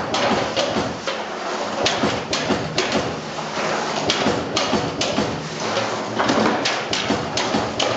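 AEM Unicore core-cutting machine feeding electrical steel strip and cutting it into laminations for a transformer core. Repeated sharp metallic clacks come irregularly, about two a second, over the rattle and scrape of the thin steel sheets being pulled out and handled.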